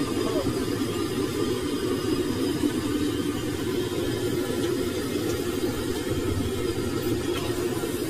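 Steady low roar of a gas burner firing under a wok of frying oil, even and unbroken throughout.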